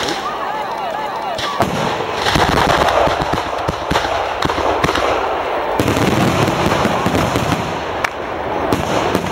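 Firework mortar shells going off in a rapid finale barrage: many sharp bangs one after another over continuous crackling.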